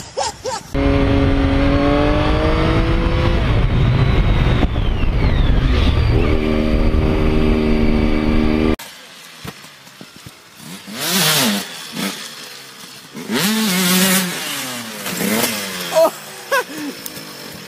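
Sport motorcycle engine heard from on the bike, its pitch falling as it slows and then holding steady. About nine seconds in it cuts to a quieter dirt bike engine revving up and down in short bursts, with a few sharp knocks near the end.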